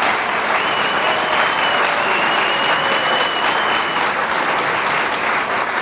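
Audience in a hall applauding steadily: many people clapping at once.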